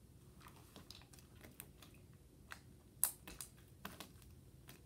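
Hands stretching and squishing slime, making scattered faint clicks and pops. The sharpest click comes about three seconds in.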